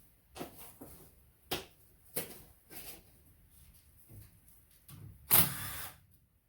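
Knocks and clinks of hand tools and metal engine parts being handled during the cylinder-head teardown of an Arctic Cat 500 engine. Five or six short knocks are followed, about five seconds in, by a louder sound lasting most of a second.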